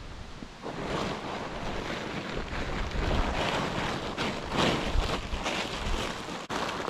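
Nylon pop-up tent fabric rustling and crinkling in uneven surges as it is crumpled and pushed into its carry bag.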